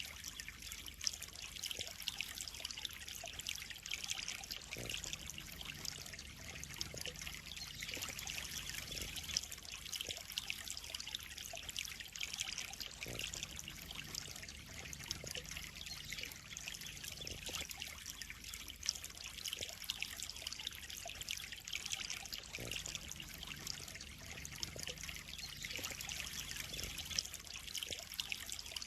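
Water trickling and splashing steadily into a koi pond, with a few slightly louder splashes now and then.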